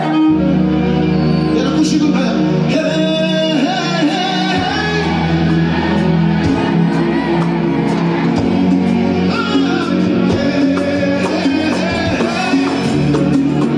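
Live Moroccan chaabi band playing, with keyboards and drums, and a male singer's voice over it.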